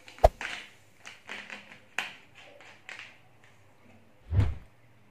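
Plastic cola bottle being handled: a sharp click, then a run of short crackling clicks as the screw cap is twisted back on, and a dull thump a little over four seconds in as the bottle is set down on the table.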